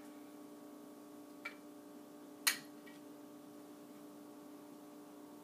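Two small clicks about a second apart, the second louder, from makeup being handled as eyeshadow is picked up, over a faint steady hum.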